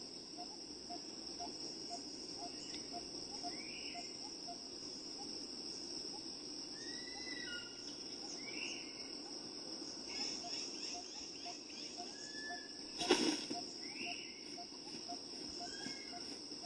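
Forest ambience: a steady high-pitched insect drone with a rapid regular ticking underneath, and short bird chirps that rise or fall in pitch every second or two. About three-quarters of the way through comes a brief loud rustle or knock, the loudest sound.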